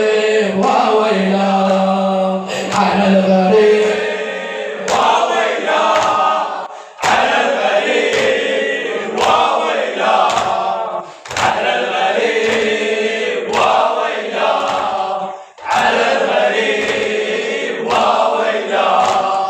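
Latmiyya mourning chant: a crowd of men sings a lament refrain together in sung phrases. Their hands strike their chests in unison about every two seconds, each time with a sharp slap.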